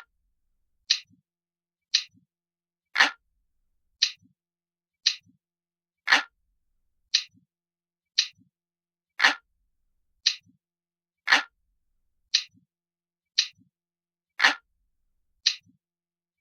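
Analog clock ticking, a sharp tick about once a second, with some ticks louder and fuller than the rest.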